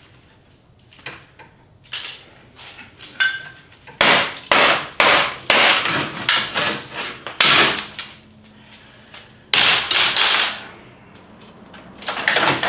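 A run of hard knocks and clanks of a tool striking car parts during a teardown, with a brief metallic ring early on and the heaviest flurry from about four to eight seconds in, then another burst near ten seconds.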